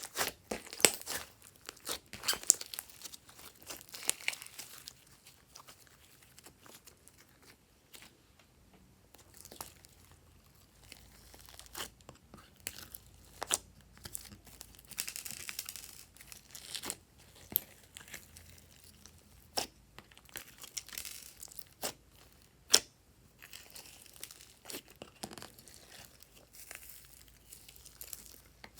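Glossy slime being kneaded and stretched by hand: sticky crackling with irregular sharp pops and clicks, busier at the start and in patches later, with a quieter spell several seconds in.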